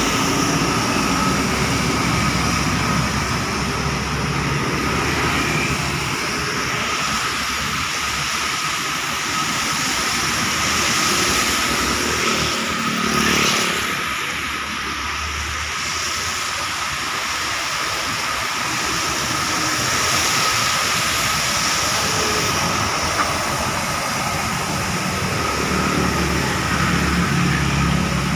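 Heavy highway traffic passing on a wet road: a steady hiss of tyres on wet asphalt over the engines of buses, trucks, cars and motorcycles, with one vehicle swelling past about halfway through.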